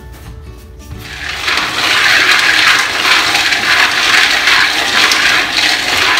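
Faint background music, then from about a second in a loud, steady sizzling hiss of raw peanuts cooking in a hot aluminium wok, stirred with wooden chopsticks.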